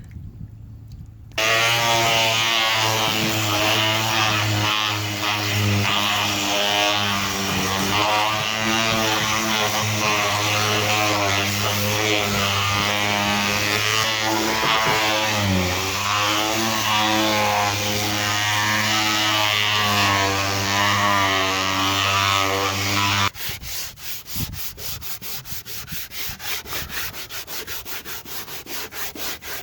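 Electric sander running on a cured fiberglass-filler patch, a steady motor whine whose pitch wavers slightly with the load. It cuts off abruptly a few seconds before the end and is followed by quick, rhythmic scraping strokes of hand sanding.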